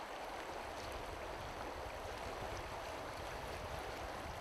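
Steady rush of a clear, shallow river running over stones.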